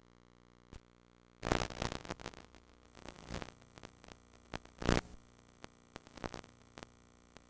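VCR audio output as VHS tape playback starts: a single click, then irregular bursts of crackling static and scattered clicks. The loudest bursts come about a second and a half in and again near five seconds.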